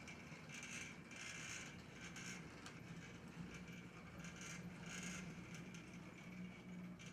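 HO-scale brass Big Boy model locomotive running on track: a faint steady motor hum, with irregular light scraping from the wheels and running gear on the rails.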